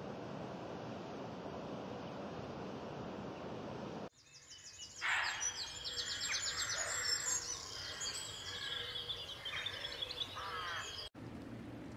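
Small songbirds singing, with many chirps and fast trills. The song comes in abruptly about four seconds in and stops just as abruptly about eleven seconds in. A steady rushing noise, like wind and surf, fills the seconds before and after.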